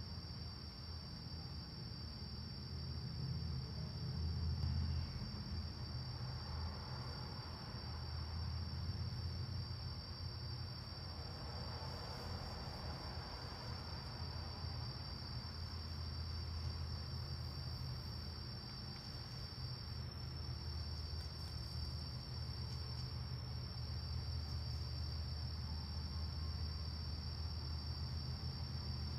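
A cricket chorus: a steady, unbroken high-pitched trill, with a low rumble underneath that swells and fades several times.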